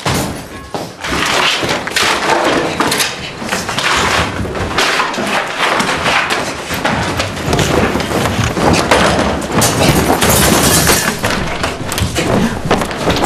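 Furniture and household objects being hurled, kicked and smashed around a room: a dense, loud run of thuds, bangs and crashes.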